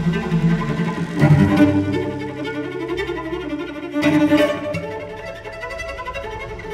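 Electronic remix of a cello piece: bowed cello playing sustained notes, with the music swelling about a second in and again at about four seconds.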